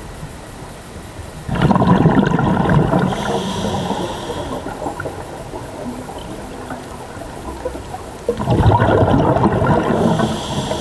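Scuba diver breathing through a regulator underwater: two long bursts of exhaled bubbles, about a second and a half in and again about eight seconds in, with a thin hiss of an inhale between them and again near the end.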